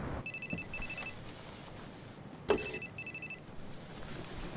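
Telephone ringing: two double rings about two seconds apart, each ring a rapid electronic trill.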